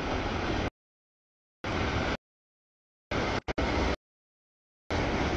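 Freight train of tank cars rolling past a grade crossing, a steady low rumbling noise heard only in four short chunks. The sound cuts in and out abruptly with dead silence between: the stream's audio is dropping out.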